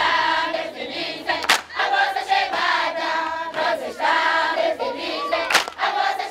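A group of voices singing together, with two sharp snaps cutting through.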